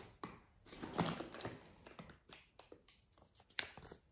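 Paper rustling and light handling knocks as a sheet of paper is searched out and picked up, with the loudest rustle about a second in.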